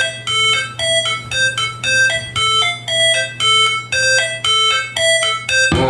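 Music played through a Sony LBT XB8AVK party speaker system during a sound test: a bright keyboard melody of quick repeated notes, about four a second, over a steady low hum. Near the end a full band with heavy bass and guitar comes in.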